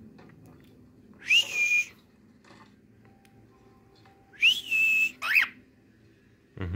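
Cockatiel whistling: two calls a few seconds apart, each a quick upward sweep that settles into a short held note, followed by a brief rising chirp.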